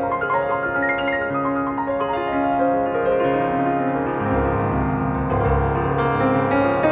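Background music: a slow, gentle piano piece with sustained chords and a melody line.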